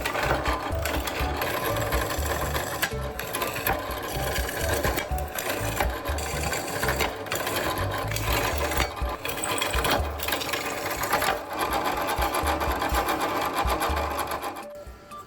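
Power tool working a steel plate, running in stretches with brief breaks and stopping near the end.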